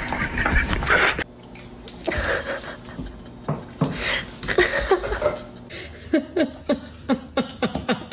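A person laughing, in a run of short chuckles through the second half.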